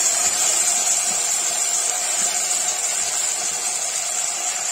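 Cubed potatoes sizzling steadily in hot oil in an aluminium pressure cooker, a frying hiss.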